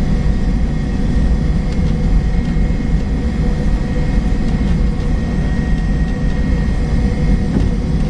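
Jet airliner's engines running at high power with a steady high whine, over a heavy rumble from the wheels on the runway, heard inside the cabin during the takeoff roll.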